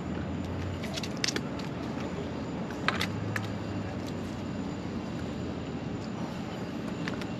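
Steady outdoor background noise with a faint low hum, broken by a few sharp clicks about a second in, again just after, and near three seconds.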